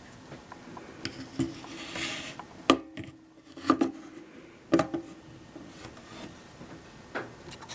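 Handling noise: a few sharp knocks and clicks of hard objects being moved about, with a brief rub, over a faint steady hum.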